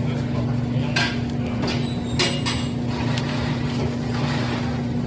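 Steady low electrical hum of a supermarket's refrigerated meat display case, with a few light clicks about one and two seconds in.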